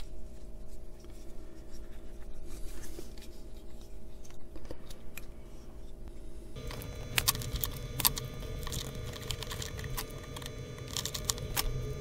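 Small clicks, taps and scrapes of a circuit board and plastic plug housing being handled and pushed together, over a steady electrical hum. The background noise changes abruptly about halfway through, and the clicks come more often after that.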